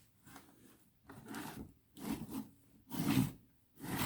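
Short rubbing scrapes from hands handling a battery pack of cylindrical cells: five swishes, about one a second, the loudest about three seconds in.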